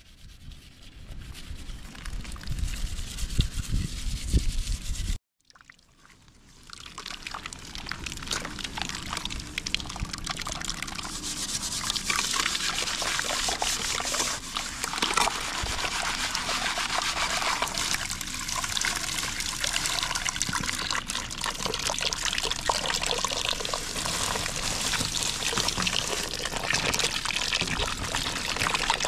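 A low rumble stops abruptly about five seconds in, and then water runs and splashes steadily.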